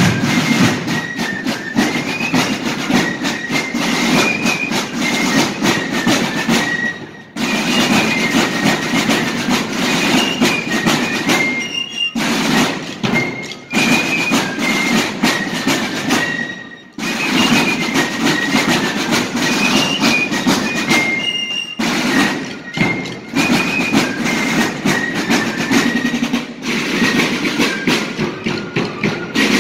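A corps of rope-tension field drums playing rapid, tightly massed rudimental strokes together, with a high fife melody over them. The music pauses briefly every few seconds between phrases.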